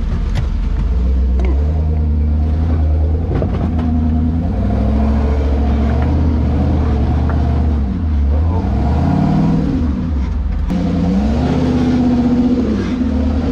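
Rock crawler's engine running under load as it crawls over boulders, the throttle rising and falling again and again, with a few sharp knocks from the rocks and chassis.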